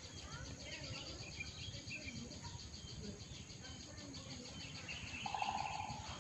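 Background of small birds chirping and a steady insect chirring, with a short rapid bird trill about five seconds in.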